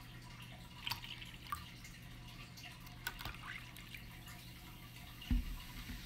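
Bleach trickling and dripping from a plastic Clorox jug into a small plastic cup of liquid, with faint splashes. Near the end a dull thump comes as the jug is set down on the table.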